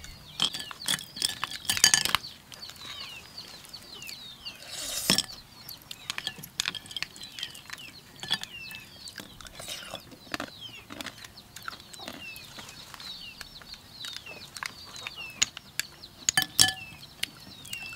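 Spoons and utensils clinking against bowls and dishes during a meal, in scattered sharp clicks, most densely about two seconds in and again near the end. Many short, high, falling chirps from birds repeat throughout.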